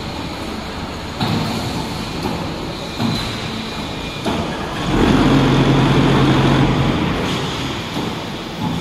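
Automatic concrete block making machine running, with several clunks. About five seconds in, it turns louder and steadier, with a low hum lasting about two seconds.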